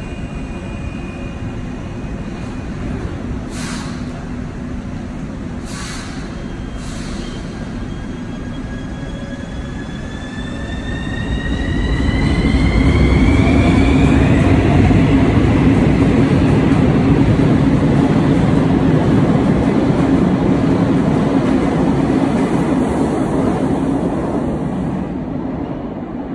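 Metro train at a station, pulling away: its traction motors whine, rising in pitch as it picks up speed, while the rumble of wheels on rails grows loud about twelve seconds in and then slowly fades. A few short knocks come before the whine starts.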